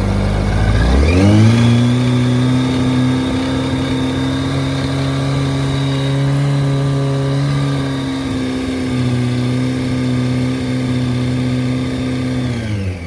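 Yamaha R1's inline-four engine revved up about a second in, held at a steady higher speed, then let drop back to idle near the end. It runs quiet, with no knock or ticking, after the bottom-end repair.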